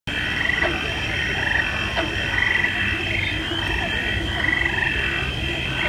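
Chorus of trilling frog-like calls, short pulsed trills repeating about once a second, over a steady low rumbling background.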